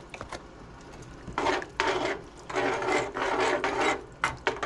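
Plastic spoon scraping the bottom of a cast-iron skillet in repeated strokes, stirring vegetable stock into a mushroom roux gravy. The strokes start about a second in.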